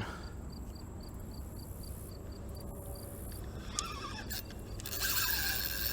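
Light, even ticking about four times a second, then near the end a fishing reel's drag begins to buzz and hiss as a hooked fish pulls line off the spool.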